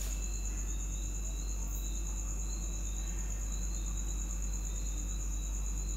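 Steady high-pitched insect trill, typical of crickets, with a second insect's broken chirping a little lower in pitch, over a low steady hum.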